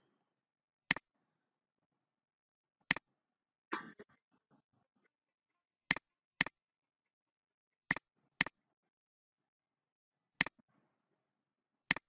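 Computer mouse button clicks: eight short, sharp clicks at irregular intervals, two of them in close pairs about half a second apart, with a brief soft rustle about four seconds in.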